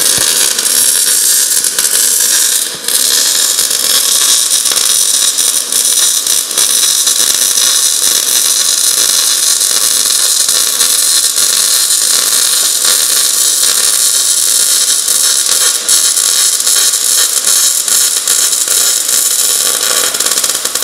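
Pulsed MIG welding arc from a Merkle HighPULSE 550 running the DeepARC process: a loud, steady hissing crackle that starts abruptly and dips briefly about three seconds in. It runs with very little spatter.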